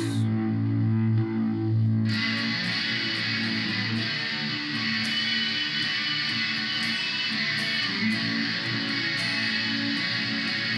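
Electric guitar played through the Korg A5 multi-effects processor's second chorus program, with sustained notes. About two seconds in the sound turns brighter as picked notes come in.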